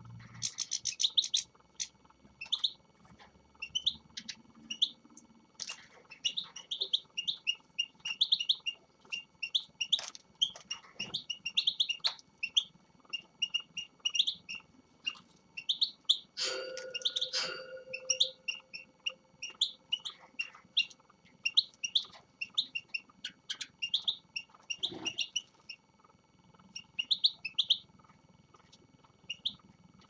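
Caged finches chirping and twittering: a steady run of short, high call notes from several birds, with a louder burst of calling about sixteen seconds in.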